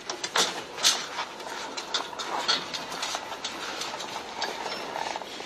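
NSU motorcycle being rolled down a metal ladder-style loading ramp: a string of knocks, clanks and rattles as the wheels drop over the ramp's rungs and the bike's loose parts shake, thinning out after about three seconds.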